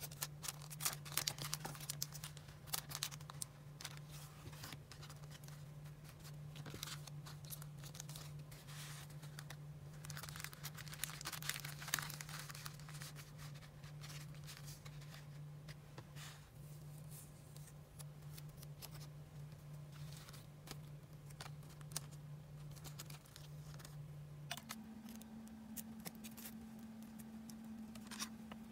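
Crinkling cellophane packets and rustling paper as craft supplies are handled, with scattered small clicks and taps. A steady low hum runs underneath and steps up in pitch near the end.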